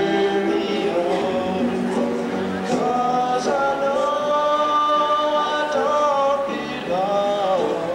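A young man singing solo into a handheld microphone, holding one long note through the middle and a shorter one near the end.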